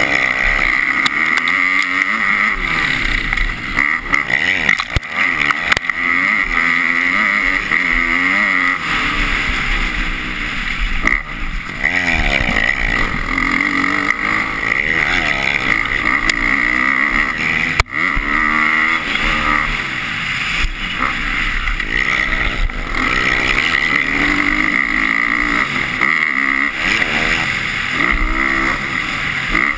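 A 250-class motocross bike's engine revving hard, its pitch rising and falling over and over as the rider accelerates and shifts around the track.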